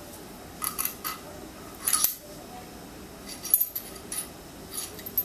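Light metallic clinks and taps of steel engine parts being handled: a spacer and washer going onto the clutch-side shaft of a Royal Enfield Bullet 350 flywheel assembly. The clinks come singly and in small clusters, about eight in all.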